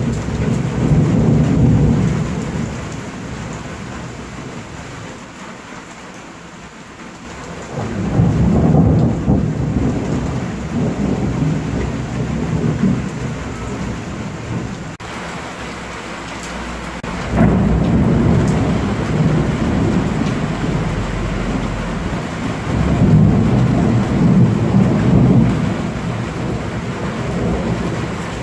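Rolling thunder in several long, low rumbles: one fading away over the first few seconds, then new peals breaking in about eight, seventeen and twenty-three seconds in, each rumbling on for several seconds. Steady rain runs underneath.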